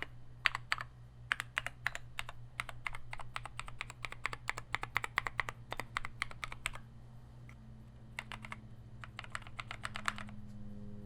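Fast typing on a mechanical keyboard with lubed NovelKey Cream linear switches mounted in a brass plate and aluminum case. A dense run of keystrokes stops about seven seconds in, and after a short pause a second burst follows that ends shortly before the close.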